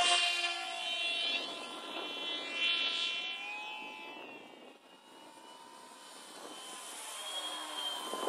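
Electric motor and propeller of a 1600 mm radio-controlled P-51 Mustang model in flight: a whine that drops in pitch as the plane passes, at the start and again about three seconds in. It fades around the middle and grows louder again near the end.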